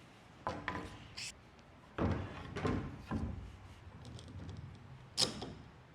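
Wooden parts being pushed together at their half-lap joints: wood sliding and knocking, with several thuds and a sharp knock a little after five seconds in.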